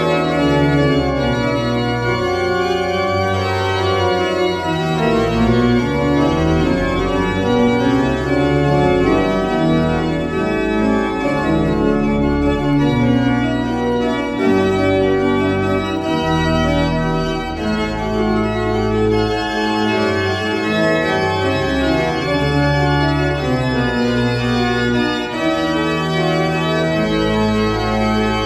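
Pipe organ playing a slow improvisation in full, sustained chords over deep bass notes that change every second or two. The instrument is a two-manual, 26-stop baroque-type pipe organ rebuilt from a 1910 Rieger organ.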